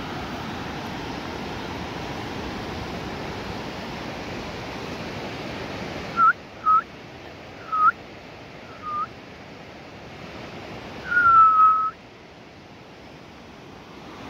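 Rushing river water, then four short clear whistled notes spaced about a second apart and one longer whistle that falls slightly in pitch near the end; the whistles are the loudest sound.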